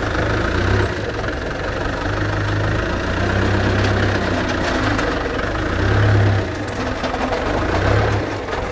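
Forklift's combustion engine running close by, revving up and easing off several times as it works a pallet out of the truck trailer.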